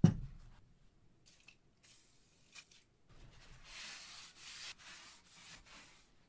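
A steel drill-press column tube set down on a paper-towel-covered bench with a thud, then rubbed with a wad of paper towel in several wiping strokes that lift rust off the steel.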